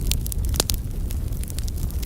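Wood logs burning in a fireplace: a steady low rumble of flames with sharp crackles and pops scattered through, the loudest pops a little past halfway through the first second.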